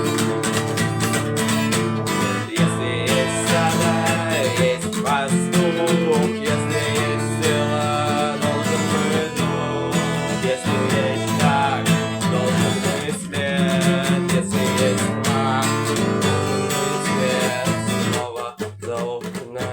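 Guitar music: strummed chords under a melody line with bent, wavering notes, thinning out briefly near the end.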